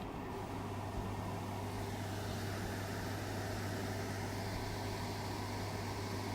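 Steady low hum with an even hiss over it, unchanging throughout, with no distinct event.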